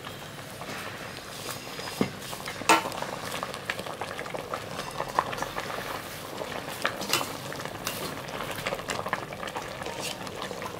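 Food sizzling in a hot pan while it is stirred, with a utensil clicking and scraping against the pan; one sharper clack a little under three seconds in.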